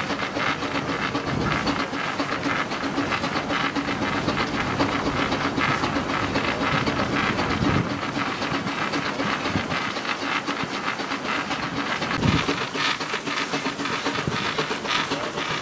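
Keck-Gonnerman steam traction engine running belted to a Baker fan, working under load: steady, rapid exhaust beats from the stack over a constant hiss of steam.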